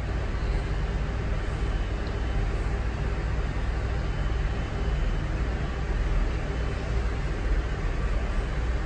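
Steady engine and airflow noise inside the cabin of an Airbus A330-200 airliner, a constant low rumble with hiss above it.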